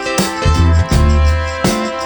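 Background music with heavy bass notes and a steady beat.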